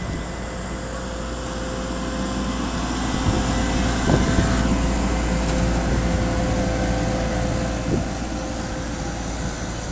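Diesel engine of a tandem asphalt roller running steadily with a constant hum, growing louder toward the middle and easing off a little near the end.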